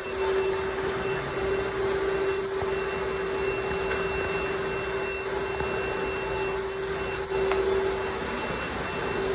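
Pressure washer running steadily with its spray hissing, a constant hum under the noise of the water jet.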